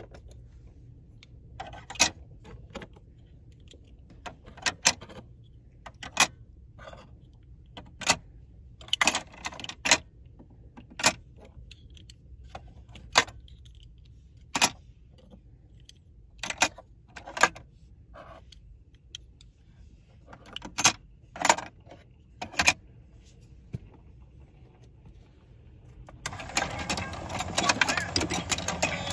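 Hard plastic toy fish clicking as they are set one by one into the holes of a toy fishing game: about twenty separate sharp clicks at uneven intervals. Near the end the game is switched on and its electronic tune starts playing along with its turning mechanism.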